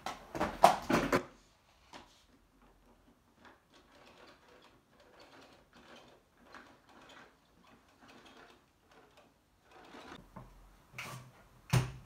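Handling noises around a switched-off canister vacuum cleaner and its power cord: a quick clatter of clicks and knocks in the first second, faint taps and rustles, then one sharp knock near the end.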